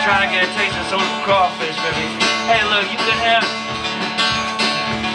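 Live music: an acoustic guitar strummed over a drum kit keeping a steady beat.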